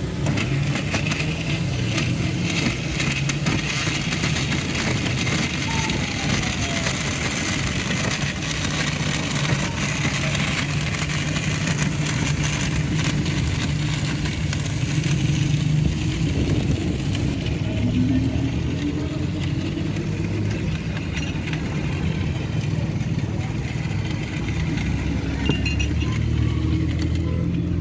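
Countertop electric blender running steadily as it blends banana juice, a loud motor hum with a rattling whir.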